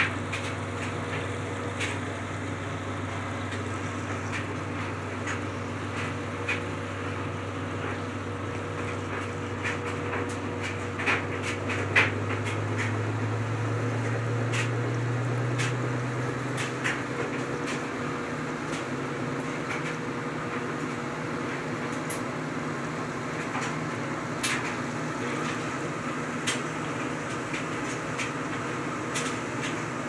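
Washing machine drain pump running and emptying water through the drain hose into a laundry sink. Its low hum rises a little and dies away about halfway through, leaving a steady machine hum and scattered light clicks, with two sharper knocks a little before the hum changes.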